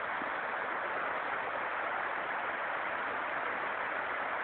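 Mountain creek rushing over rocks in whitewater rapids: a steady, even rush of water.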